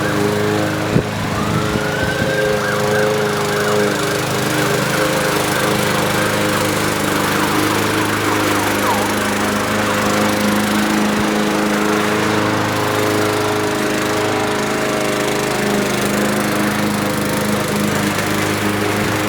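Craftsman M210 self-propelled push mower's small engine running steadily, with a thin higher whine that rises about a second in and holds for several seconds.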